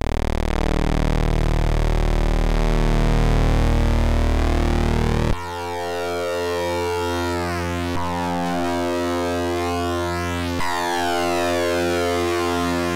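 Modular synthesizer drone from a wave-spliced patch of Rossum Trident oscillators switched by a Klavis Mixwitch, with the auxiliary oscillator's pulse width modulated so the overtones sweep up and down. The tone changes abruptly about five seconds in, and a couple of small clicks follow.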